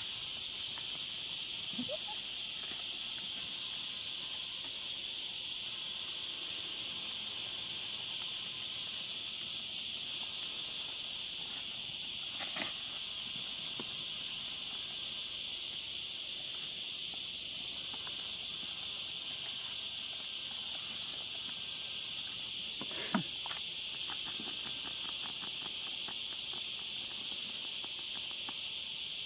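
Steady, high-pitched chorus of insects droning without a break, with two brief sounds about 12 and 23 seconds in.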